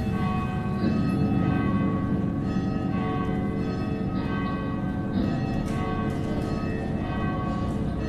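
Bells ringing, with many pitched tones overlapping and hanging on, and a fresh strike every couple of seconds, over a steady low noise.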